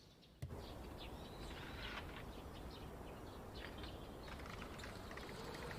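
Faint outdoor ambience with birds chirping, starting abruptly about half a second in and continuing steadily.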